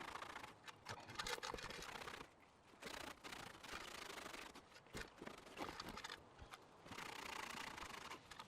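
Scraping and scratching on a rusty metal bird feeder during cleaning, in uneven strokes with a few sharp clicks between them.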